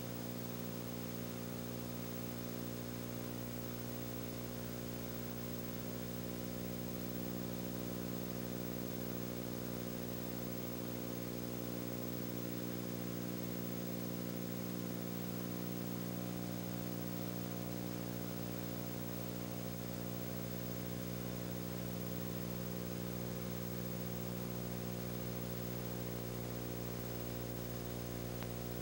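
A steady low hum with a stack of overtones over even hiss, unchanging throughout.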